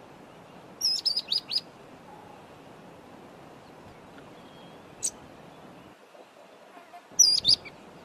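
Red-faced mousebird calling: a quick run of four high, falling whistled notes about a second in, one short note about five seconds in, and another quick run of three notes near the end.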